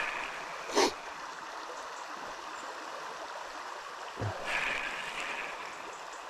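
River water rushing steadily over the riffles, with one short sharp knock about a second in and a brief louder stretch of noise a little past the middle.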